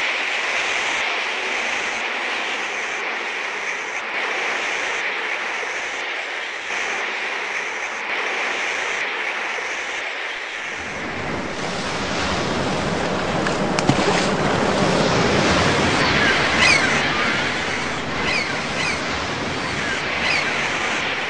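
Ocean surf and wind sound effects: a steady windy hiss, with a heavier, deeper rush of waves coming in about halfway through. A few short high whistling chirps come near the end.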